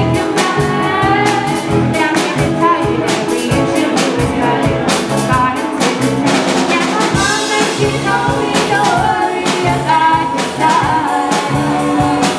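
Live pop-rock band playing: a drum kit keeping a steady beat under the band, with a female lead vocal and backing singers.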